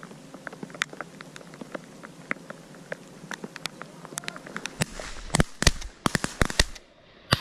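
Light scattered ticking, then about five seconds in a quick volley of several sharp shotgun blasts from duck hunters firing at mallards overhead, with one more shot near the end.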